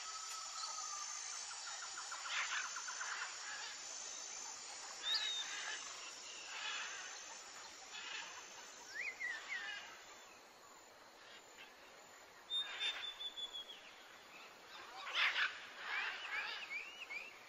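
Faint outdoor birdsong: scattered short bird calls every second or two, some whistled notes sliding up or down and some harsher clusters of calls, with a quick run of short rising chirps near the end.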